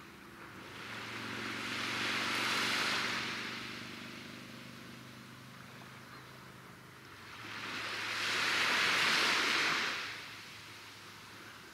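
Waves washing in twice, each a slow swell of rushing noise that builds and fades over several seconds, the second a little louder. Faint low held tones of background music sit underneath.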